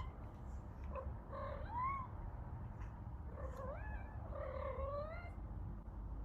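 A kitten mewing, about five short high calls that rise and fall in pitch, over a low steady background rumble.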